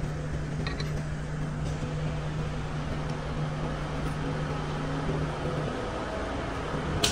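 Steady machine hum with a low held tone that drops out about two-thirds of the way through, and a faint click about a second in.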